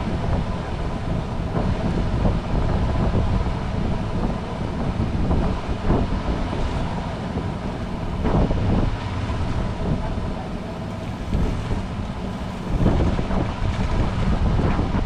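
Wind buffeting the microphone over the steady hum of a boat's engine, with a few brief knocks.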